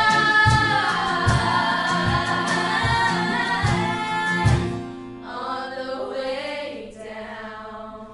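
Music with a group of voices singing over a steady beat of about two strokes a second. The beat drops out about four and a half seconds in, and softer singing carries on.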